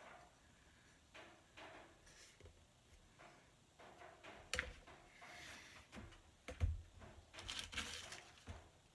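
Hand-assembly noises of small parts at a workbench: scattered light knocks and rustling, with a sharper knock about four and a half seconds in and a louder cluster of knocks and rustling from about six and a half to eight seconds.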